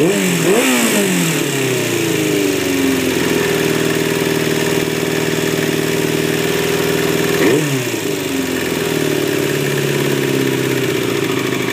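Warm 2000 Yamaha R6 sport-bike engine being blipped twice in quick succession, its revs falling back and then holding steady. A third sharp blip comes about seven and a half seconds in before it settles at a lower idle. The engine makes a weird noise that the owner wants checked, but its cause is not named.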